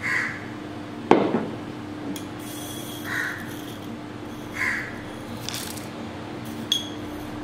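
A crow cawing three times, short calls about a second and a half apart, over a steady low hum. About a second in, a sharp tap of a metal spoon against the wok.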